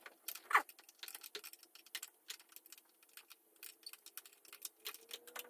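Light metallic clicks and taps of a flare nut wrench working the high-pressure diesel fuel line fittings at the injection pump of a Mercedes OM617 engine as they are loosened, with one short falling squeak about half a second in.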